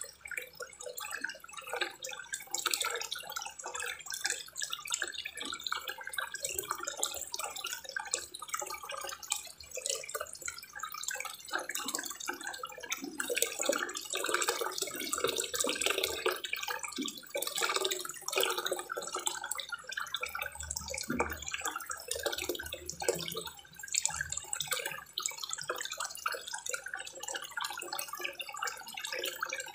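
Small spillway waterfall pouring a thin sheet of water into a koi pond, a continuous irregular splashing and trickling.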